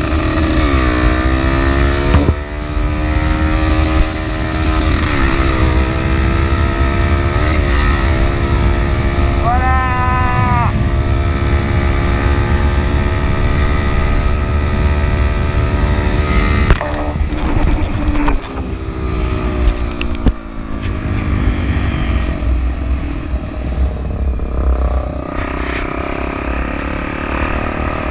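Trail motorcycle engine running under way, its pitch climbing and dropping again and again as the rider goes up and down through the gears, over a steady low rumble. A brief high tone sounds about ten seconds in, and a few sharp knocks come later.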